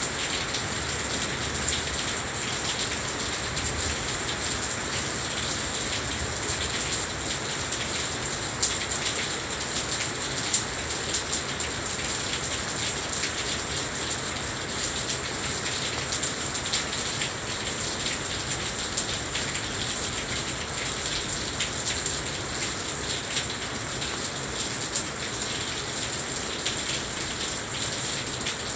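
Heavy rain falling steadily: a dense, even hiss flecked with many sharp drop ticks.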